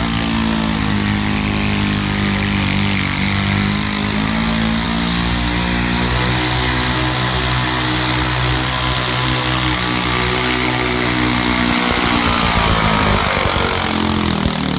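Super stock pulling garden tractor's engine running hard under load as it drags a weight-transfer sled. The note holds fairly steady, grows louder as the tractor passes close, and falls in pitch near the end.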